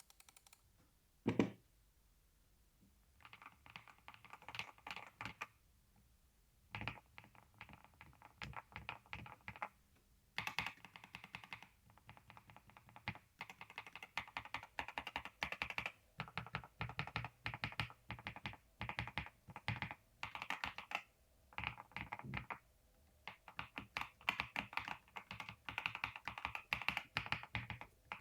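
Typing on a GMK67 65% mechanical keyboard fitted with KTT White switches, modded with tape, foam and polyfill and with lubed stabilizers: runs of rapid keystrokes broken by short pauses, with one louder knock about a second in.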